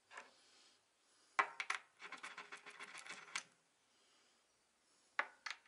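Small metal banjo bolts with spring check valves clicking and clinking as they are handled, tested with a drill bit and set down on the workbench. There is a sharp click about a second and a half in, then a quick run of small clicks, and two more clicks near the end.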